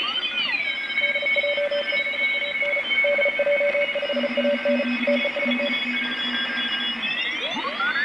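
Homebuilt shortwave receiver picking up amateur-radio Morse code (CW) contest signals over band hiss: several beeping tones at different pitches key on and off at once. The tones sweep in pitch as the tuning knob turns, at the start and again near the end, and hold steady in between.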